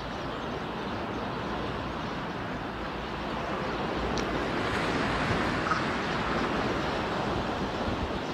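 Steady rushing outdoor background noise, swelling a little in the middle, with no bird calls heard.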